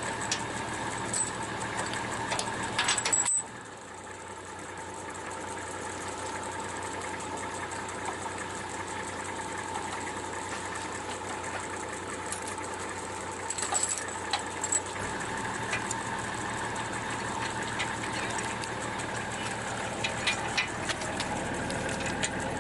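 A vehicle engine running at a steady idle, with a constant drone and a few light clicks. It drops away abruptly about three seconds in and then carries on at the same steady level.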